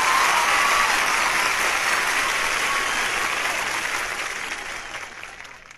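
Crowd applauding after a marching band number, the applause fading away toward the end.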